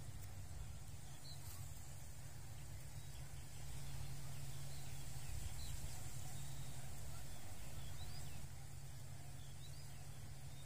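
Open-field ambience: a steady low rumble that gets a little louder from about three and a half to eight and a half seconds in, with a few faint, short bird chirps scattered through it.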